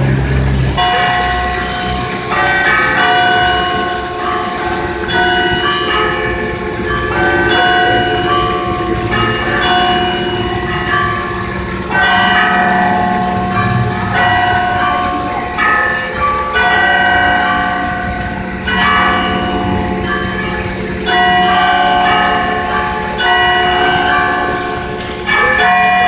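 Cathedral church bells ringing, starting about a second in: several bells struck over and over in a repeating pattern, their tones ringing on and overlapping one another.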